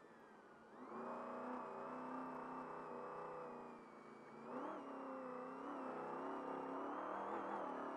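Trophy truck's engine pulling hard under acceleration, heard from the cab. The revs ease off right at the start and again about four seconds in, and each time climb again.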